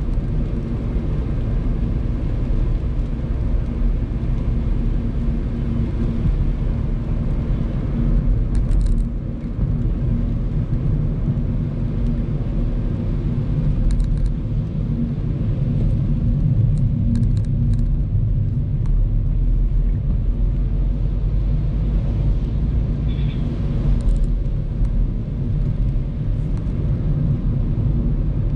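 Steady low rumble of a car's engine and tyres on a wet road, heard from inside the cabin, with a few brief faint high ticks now and then.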